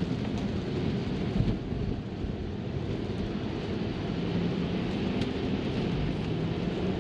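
Steady in-cabin road noise of a Tesla driving on a wet road in the rain: tyres hissing through water and rain on the glass roof and windshield.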